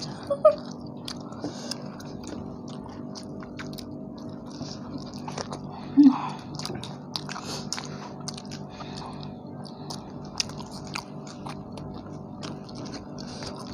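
Close-up chewing and biting of tandoori chicken, with many small wet clicks and crunches, over a steady low hum.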